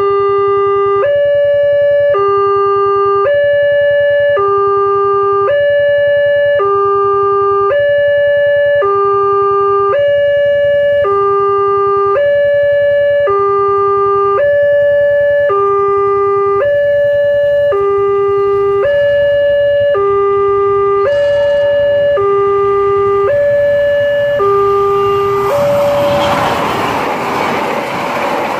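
Railway level-crossing warning alarm sounding a steady two-tone electronic chime, alternating a low and a high tone about a second each. The alarm stops a few seconds before the end, and a passenger train then rushes past close by.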